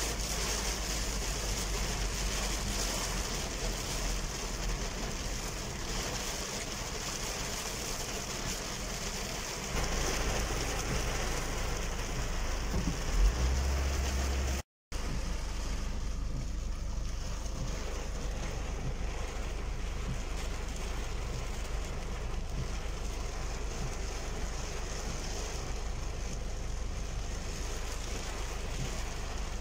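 Heavy rain beating on a car's windscreen and roof, heard from inside the cabin over a steady low rumble of the engine and tyres on a wet road. The sound cuts out for a moment about halfway.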